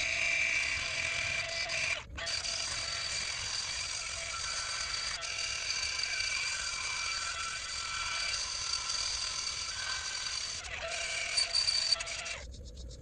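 Electric angle grinder running against the rough chainsaw-cut wood of a pin oak block, smoothing it, with a steady whine. The sound dips briefly about two seconds in and cuts off near the end.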